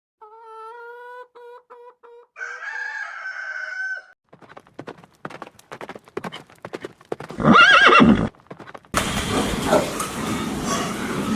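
A rooster crowing in broken pitched notes for the first few seconds. Then a run of hoofbeats, a loud horse whinny, and from about nine seconds a loud, even rushing noise.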